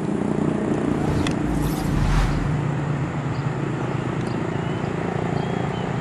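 Horn of a Red Komodo high-speed EMU train sounding as a steady low, multi-toned blast that holds through the whole stretch. Gusts of wind buffet the microphone, the stronger one about two seconds in, and a few small bird chirps come near the end.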